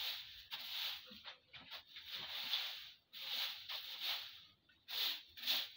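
Broom sweeping straw and poultry litter across a shed floor in a run of short, scratchy strokes with brief pauses between them.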